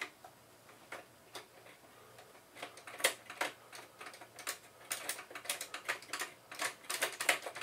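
Scattered small metal clicks and scrapes from fingers working the spring-loaded thumb screws and bracket inside a 2009 Mac Pro's case, coming more often after about two and a half seconds.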